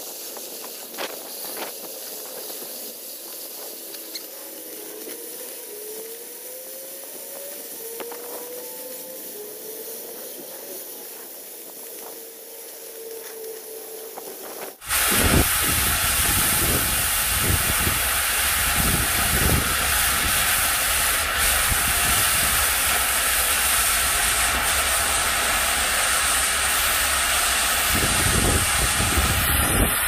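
Oxy-fuel cutting torch hissing steadily as it burns through thick steel plate to form an axe bevel. About halfway through, the hiss suddenly becomes much louder and fuller.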